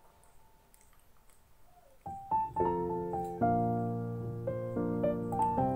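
Background piano music: near quiet for about two seconds, then a piano tune starts, playing chords under a melody.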